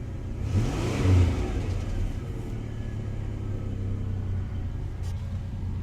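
1993 Chevy S10's 2.8-litre V6 idling, revved once by hand at the throttle body about half a second in, its pitch rising and then settling back to idle.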